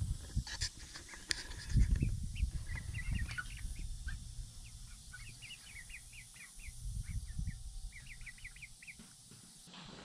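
Young chickens (pullets) chirping in quick short peeps, several in a run, starting about two seconds in, over a low rumble.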